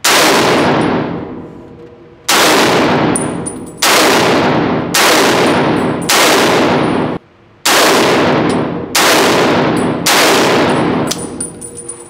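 Semi-automatic Browning Automatic Rifle in .30-06 firing eight single shots about one to two seconds apart, each crack followed by a long echo in the indoor range. Light metallic clinks sound between shots.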